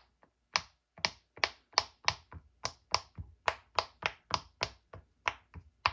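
Silicone push-pop bubble fidget toy, its bubbles pressed through one after another, each giving a sharp little pop, about three pops a second.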